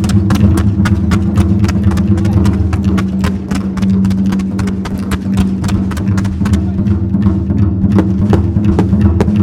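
Japanese taiko (wadaiko) show music: a steady low drone with rapid, sharp wooden clicks, several a second.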